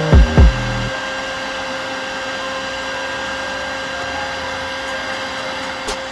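Bee vacuum running steadily as its hose nozzle sucks honeybees off the comb: a rushing hiss with a steady motor whine. Two loud thumps come in the first half-second, and a low rumble drops away about a second in.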